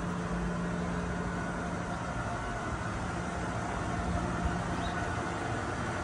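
Steady background noise with a low, even hum that fades out about halfway through.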